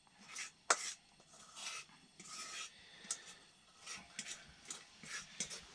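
A utensil scraping batter off the inside of a stainless steel mixing bowl: quiet, intermittent scraping strokes with a couple of sharp metallic clicks.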